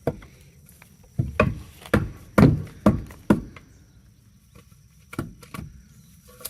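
Irregular sharp knocks on wood: a quick run of about six between one and three and a half seconds in, then two fainter ones near the end.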